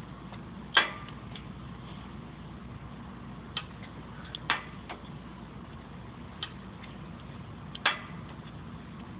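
A few scattered sharp metal clicks and clinks as a socket wrench is fitted and worked on a bolt in the transmission's drive flange. The clicks come at uneven intervals, the loudest near the start and near the end, over a low steady hum.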